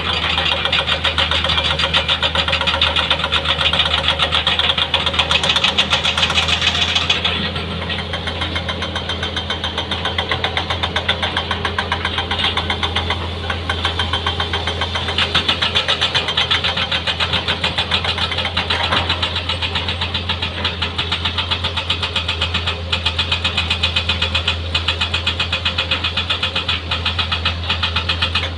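Diesel engine of heavy earthmoving equipment (bulldozer or excavator) running steadily with a deep hum and a rapid even knock; it eases off about seven seconds in and picks up again around fifteen seconds in.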